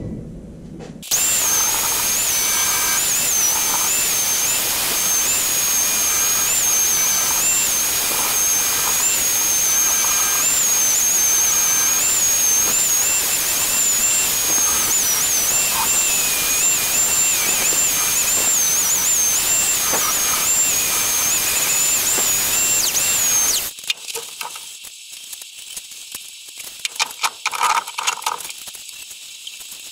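Compressed air hissing hard with a high whistle that wavers up and down in pitch, running for over twenty seconds and then cutting off suddenly. A few light metal clinks follow near the end.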